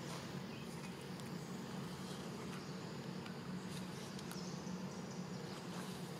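Steady low outdoor background hum with a few faint, scattered ticks.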